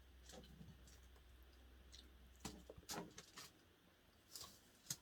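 Near silence with a handful of faint, short clicks and taps from eating at a table, such as cutlery or a spoon touching a plate, mostly in the second half.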